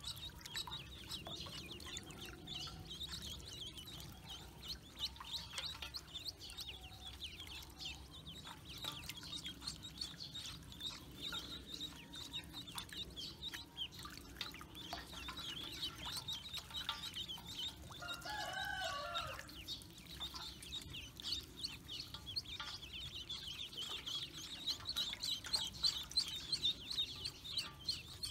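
A brood of ducklings peeping continuously, a dense chatter of short high peeps. About two-thirds of the way through, one longer, lower call from another bird stands out.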